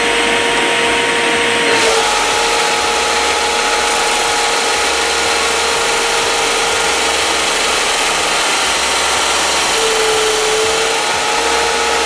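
SIP 01943 combined belt and disc sander running with a steady whine while its 10-inch abrasive disc sands the end of a wooden moulding. The hiss of sanding grows fuller about two seconds in, as the wood is pressed to the disc.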